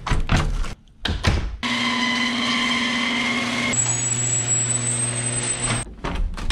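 Interior door handled, with knob and latch clicks and a knock, then a garage door opener's motor running steadily for about four seconds with a hum and a high whine as the garage door rises, then the doorknob clicks again near the end.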